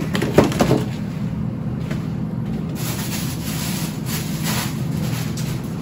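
Frozen food tubs and packets being handled in an open freezer, with a few knocks and rustles in the first second, over a steady low hum.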